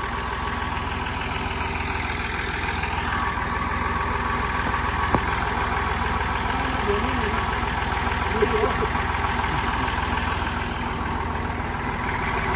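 Massey Ferguson 240 tractor's diesel engine running steadily at low revs, with one sharp click about five seconds in.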